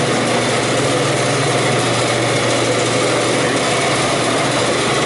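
Walk-in cooler evaporator fans running close by: a steady whir of moving air over a constant low motor hum, with the refrigeration system in operation.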